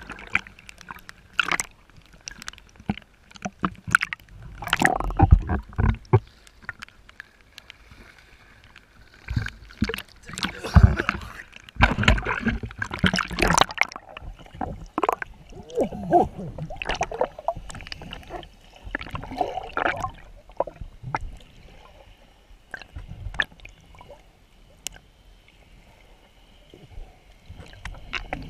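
Sea water sloshing and gurgling around a camera as it moves between the surface and underwater, in irregular bursts with a few heavy low thumps in the first half and quieter near the end.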